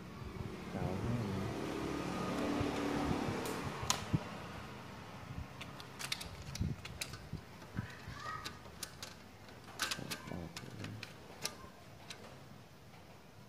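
Scattered sharp clicks and knocks as a CRT television's deflection yoke and its wiring are handled and set down on a table, over a rushing background noise that swells and fades in the first few seconds.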